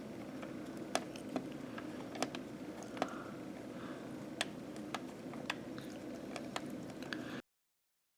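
Scattered small clicks and taps of hands working loose a laptop's hard drive and its plastic and metal parts, over a faint steady hum of room tone. The sound cuts off suddenly near the end.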